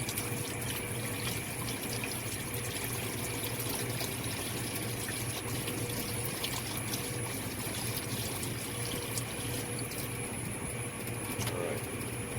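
Water poured steadily from a container down a walk-in freezer evaporator's condensate drain line, a test of whether the condensate pump lifts the water away. A steady mechanical hum runs underneath.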